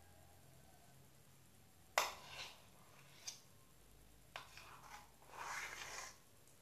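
Homemade flour slime being stirred in a container: a sharp knock about two seconds in, two lighter clicks after it, and about a second of rubbing noise near the end.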